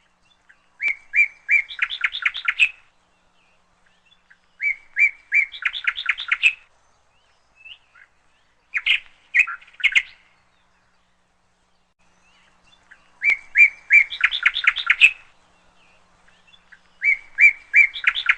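A songbird singing five times in repeated short phrases, each a few evenly spaced notes that break into a quicker run of notes, with gaps of a couple of seconds between phrases.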